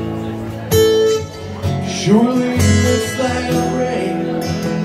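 Two acoustic guitars strummed together in a live performance, with a loud strum about three-quarters of a second in.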